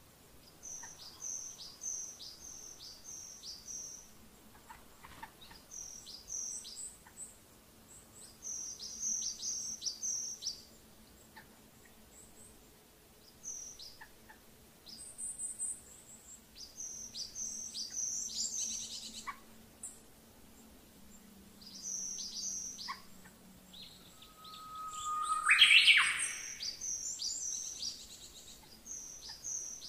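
Birds chirping: runs of four to six short high chirps, repeated every few seconds, with one louder rising call about 25 seconds in.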